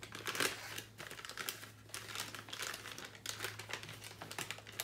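MRE beverage-powder packet crinkling as it is handled and torn open at its notch, in a quick, irregular run of crackles.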